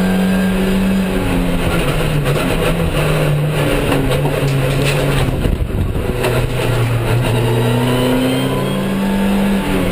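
Nissan Tiida race car's engine heard from inside the cabin. The engine note drops in steps over the first half, then climbs steadily and falls sharply near the end, as at a gear change. A few sharp knocks and rattles come about halfway through.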